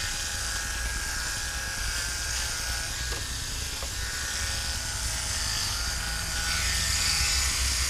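Electric fish scaler running steadily, its small motor buzzing as the spinning head scrapes the scales off a fish.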